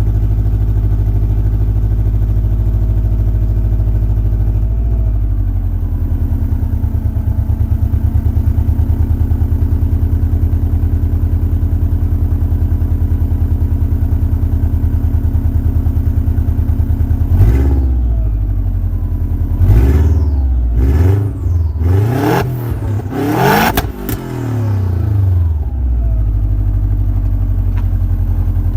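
Subaru Forester SG5 Turbo's turbocharged flat-four engine on its stock exhaust, idling steadily. About two-thirds of the way in it is blipped through a quick series of five or six revs, each rising and falling, then it settles back to idle.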